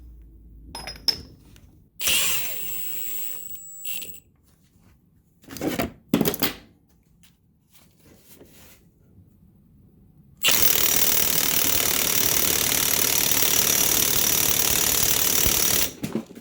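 Milwaukee M18 Fuel 1/2-inch high-torque impact wrench on a 5 Ah XC battery, speed setting 3, hammering steadily for about five and a half seconds from about ten seconds in, then stopping abruptly. Before it there are a few handling knocks and clatters.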